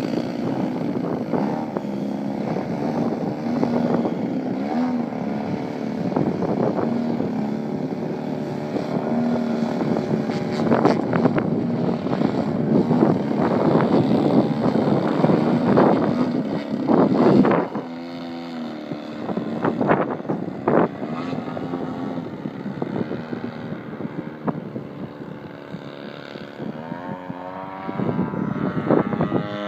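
Giant-scale RC aerobatic plane's engine and propeller running in flight, the throttle swinging up and down through 3D manoeuvres. The loudest, most rapid revving comes in the middle and then drops off suddenly; the engine runs quieter after that, and its pitch climbs again near the end.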